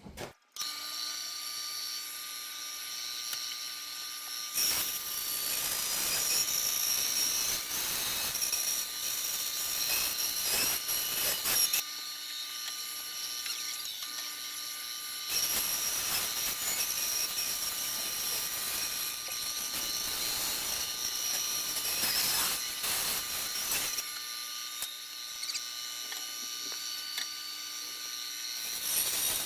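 Small power tool running steadily, with louder, noisier stretches while it cuts the rough outline of a template, twice for several seconds each.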